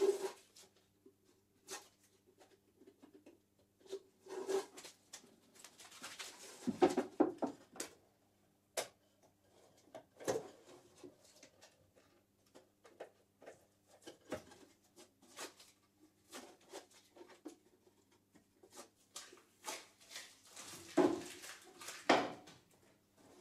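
A small oak box being handled on a wooden workbench: scattered light knocks and clunks of wood as the box and its lid are turned in the hands and set down, with louder knocks about seven seconds in and twice near the end.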